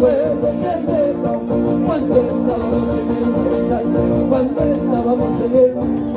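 Live Arequipa pampeña played on strummed acoustic guitars and other plucked strings, with a man singing over them.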